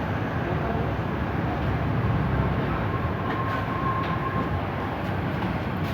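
Bajaj CT100's small single-cylinder four-stroke motorcycle engine running steadily after an overhaul, with a fast, even low pulsing.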